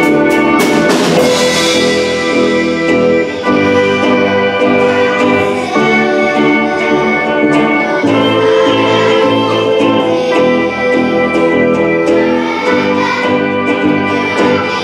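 Live pop song played by a band with drum kit, a children's choir singing along, with cymbal strikes in the first second or so.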